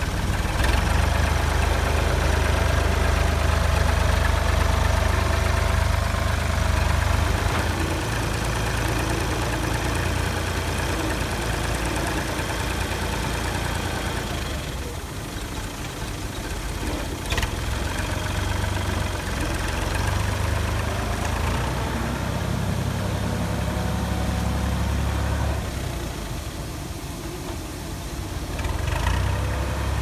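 Tractor's diesel engine running steadily under load while it pushes a grain pile with a front loader blade, easing off twice for a couple of seconds. A single sharp knock sounds a little past halfway.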